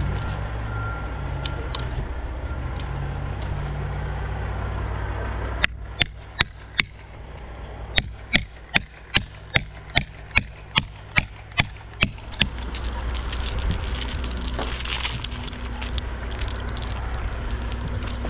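A hammer driving a plastic felling wedge into a saw cut in a large trunk to open the kerf: about sixteen sharp strikes, most coming steadily two or three a second, over a steady low engine drone. Near the end the strikes stop and give way to scraping and rattling as a rigging chain is handled around the wood.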